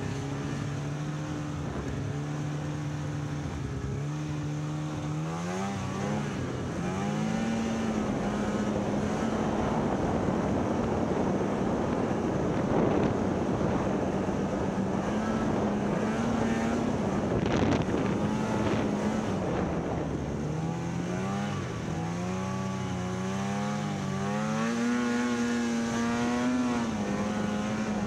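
Snowmobile engine running under way: its note rises as it accelerates a few seconds in, then holds steady with wind and snow rushing past. Near the end the note rises and falls again and again with the throttle.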